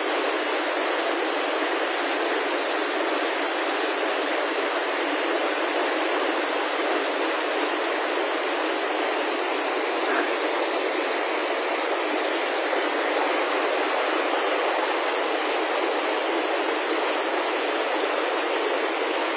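River water rushing over rocks in rapids: a steady, unbroken rush of churning white water.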